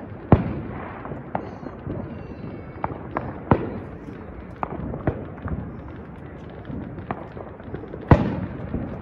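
Fireworks going off all around: a steady scatter of distant pops and booms, with sharp loud bangs about a third of a second in, around three and a half seconds in, and near the end.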